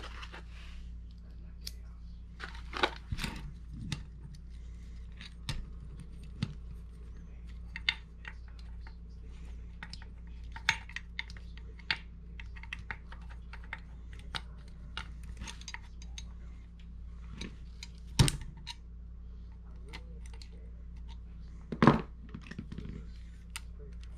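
Scattered small clicks, taps and knocks from a Lionel 671 toy steam-turbine locomotive being handled and fitted back together on a workbench, with two sharper knocks in the second half, over a steady low hum.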